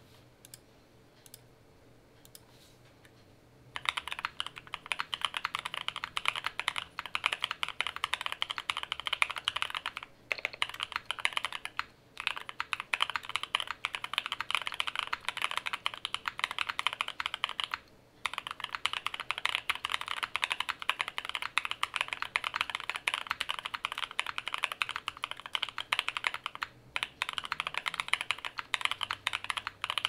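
Fast, continuous typing on a Shelby80 mechanical keyboard with lubed and filmed Nebula switches in an aluminum plate, fully foam-dampened, with CRP Desko R4 keycaps: a dense stream of keystroke clacks with brief pauses now and then. It starts about four seconds in, after a few faint clicks.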